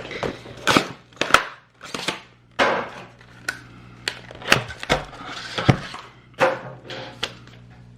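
Weiss Schwarz trading cards being handled: irregular sharp clicks, taps and short swishes as cards are flipped through and set down on a surface.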